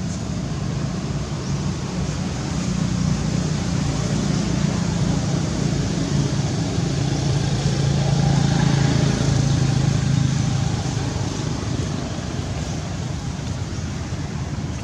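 A motor vehicle's engine running out of sight: a steady low hum that swells to its loudest about eight to ten seconds in and then eases off, over a steady hiss.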